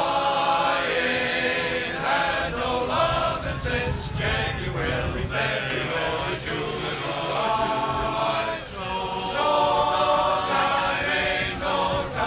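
A men's chorus singing in harmony, holding long chords.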